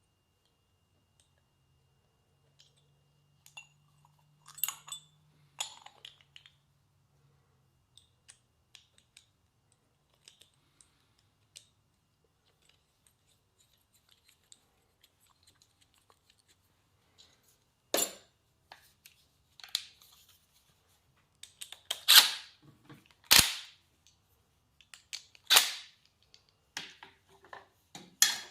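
Scattered light clicks, then several sharp knocks and clacks in the second half: tools and small parts being handled and set down on a workbench during repair work.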